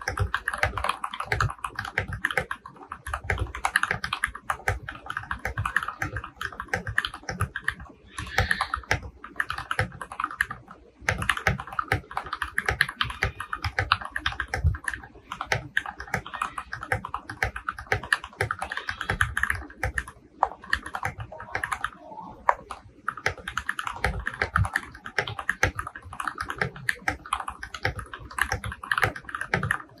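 Typing on an FL.CMMK MK870 tray-mount mechanical keyboard with stock Gateron Pro Milky Yellow linear switches, a steel plate, case and PCB foam and a tempest mod. The keystrokes come thick and fast in runs, broken by a few brief pauses.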